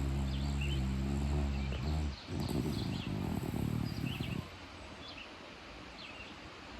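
Yorkshire terrier snoring: a low droning snore for about two seconds, then a rougher, rattling breath for about two more, then a short quiet pause before the next snore.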